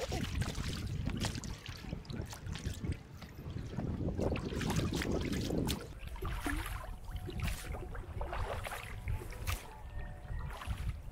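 Oars of an inflatable rowboat dipping and splashing in the sea as it is rowed, with oarlock creaks and knocks, over a steady low rumble.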